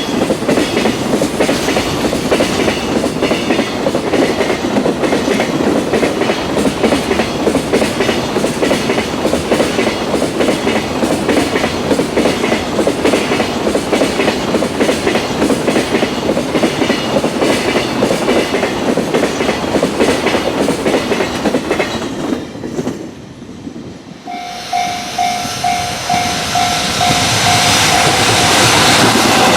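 Freight train wagons passing close at speed, their wheels clattering rhythmically over the rail joints. About three-quarters of the way through, the clatter dies away as the train clears. A level-crossing warning bell then rings in steady repeated pulses as rumble builds again.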